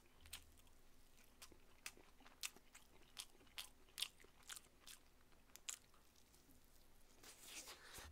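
Close-miked chewing of a fish-cake bar (eomuk bar): soft, irregular mouth clicks and smacks, about one or two a second, with a longer soft rustle near the end.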